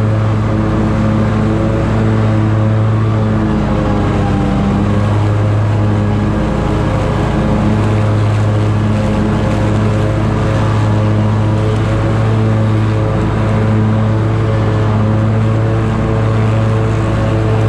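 Scag Tiger Cat zero-turn mower's engine running steadily at mowing speed with the 61-inch deck's blades engaged, cutting grass, heard from the seat. Its pitch dips slightly for a moment about four seconds in.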